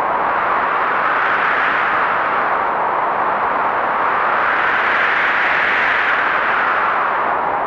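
Heavy blizzard wind blowing as a steady rushing noise. It swells slowly, peaks a little past the middle, then eases near the end.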